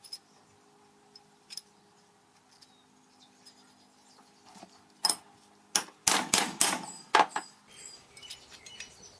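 Metal plate being worked flat on a bench to take out a slight bow: after a few quiet seconds, a quick run of about six sharp metal knocks over two seconds, then lighter clinks near the end.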